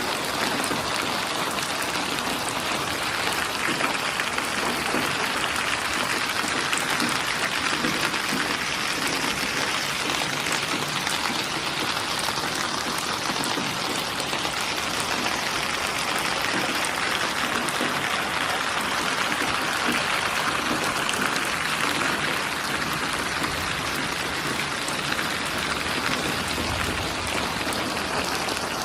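Steady rain falling, an even hiss of many drops pattering on a surface.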